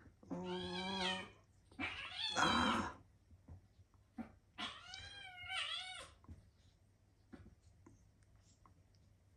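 Male cats yowling during a rough tussle: three drawn-out calls in the first six seconds, the second the loudest and harshest, the last wavering up and down in pitch.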